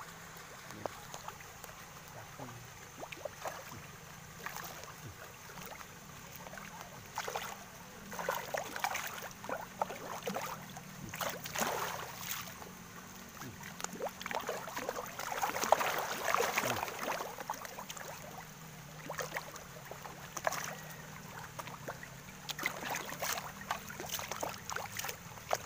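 Pond water splashing and lapping, with many small irregular splashes and plops as fish crowd and churn at the surface. There is a louder spell of splashing a little past halfway.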